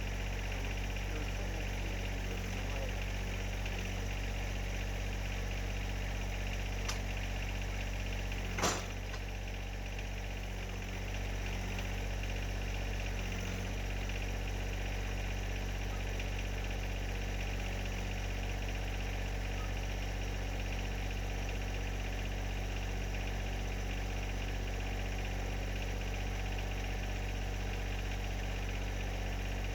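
John Deere 1025R's three-cylinder diesel engine running steadily, with one sharp clack about nine seconds in.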